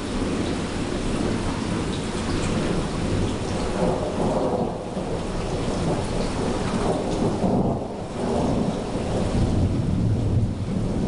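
Thunderstorm: steady rain falling with thunder rumbling underneath, the rumble swelling a couple of times.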